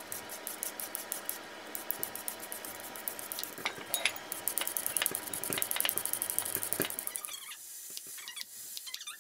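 Vegetable peeler scraping down raw carrots in quick repeated strokes. About seven seconds in it gives way to a quieter, sharp tapping of a knife through green beans onto a wooden cutting board.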